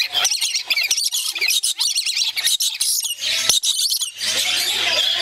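A pair of lories screeching and chattering shrilly in quick bursts with short breaks, calls of excited birds bobbing in display.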